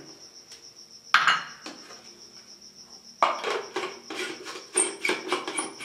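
Clinks of glass on glass as a small glass bowl is tapped against the rim of a glass grinder jar to empty it, a sharp one about a second in. From about three seconds in comes a run of knocks and clatter as the plastic blade-and-lid unit is fitted and twisted onto the glass jar.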